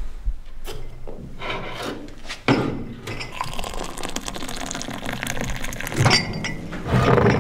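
Hot water running from a stainless-steel urn's tap into a ceramic mug, starting about two and a half seconds in. Near the end the instant coffee is stirred with a spoon.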